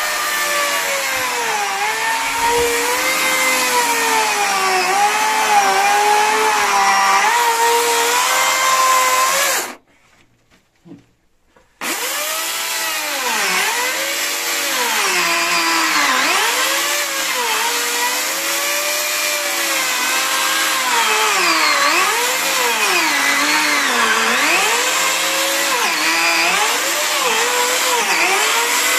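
Corded electric chainsaw cutting into clay mixed with sand, its motor whine dipping in pitch as the chain bogs down in the soil and rising again as it frees up. It stops for about two seconds about a third of the way in, then starts again and keeps cutting.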